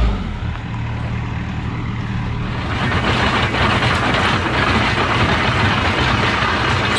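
A digging machine's engine running under load as it begins to cut into the ground. The engine picks up speed right at the start, and a louder, harsher noise of the digging joins about three seconds in.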